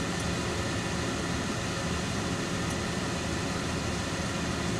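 Steady drone inside a stationary armoured military vehicle, its engine running.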